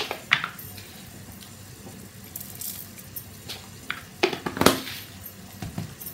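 Metal kitchen utensils clinking and knocking: a few scattered sharp clanks, loudest about four and a half seconds in.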